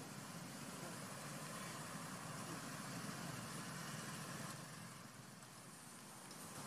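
Faint, steady outdoor background hum with no distinct events, dipping slightly about five seconds in.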